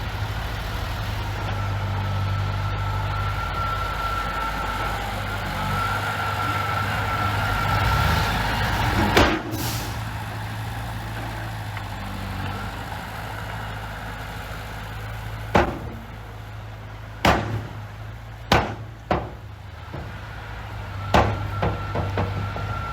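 A heavy construction machine's engine running steadily, with a faint steady whine. Several sharp metallic knocks: one about nine seconds in, then a cluster of six in the second half.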